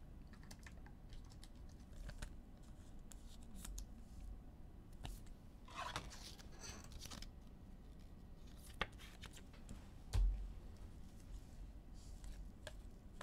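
Faint handling of trading cards: soft clicks and scrapes as the cards are flipped through, with a short low thump about ten seconds in.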